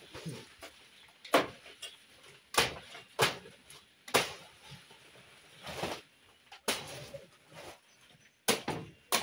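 Irregular sharp cracks and knocks, about eight in all, with brief rustling, from a large banana bunch and its stalk and leaves being pulled and worked free of a bent-over banana plant.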